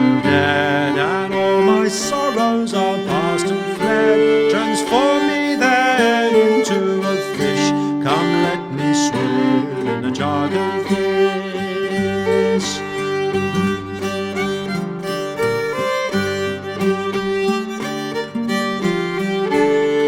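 Instrumental break in a traditional English folk song: a fiddle plays the tune, with slides and vibrato, over held accompanying notes.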